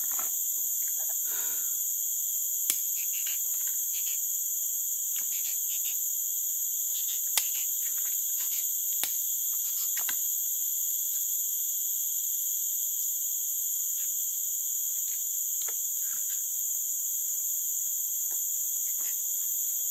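Steady, high-pitched chorus of insects in tropical forest, an unbroken drone sitting on several fixed pitches. A few sharp clicks stand out over it, the loudest about seven seconds in.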